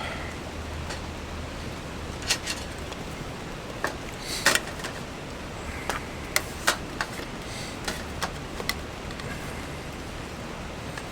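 Steady rush of a nearby river, with scattered light clicks and taps, about a dozen, the loudest about four and a half seconds in.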